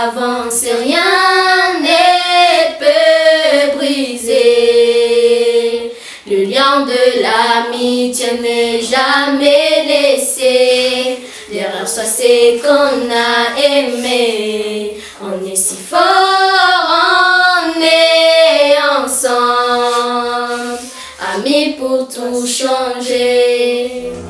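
Children singing a song unaccompanied, in phrases with long held notes and short pauses between them.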